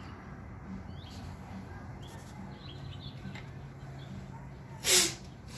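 A 5-gallon plastic bucket of tractor hydraulic fluid being lifted and handled, over a low steady hum with faint high chirps. About five seconds in there is one short, loud creak that falls in pitch.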